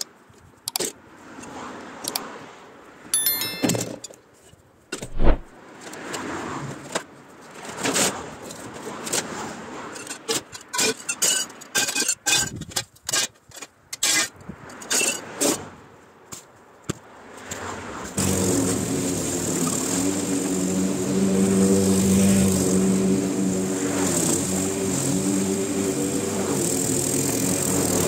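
Scattered knocks, clatters and scrapes of things being moved about on the lawn. About two thirds of the way in, a walk-behind petrol lawn mower's engine comes in suddenly and then runs steadily.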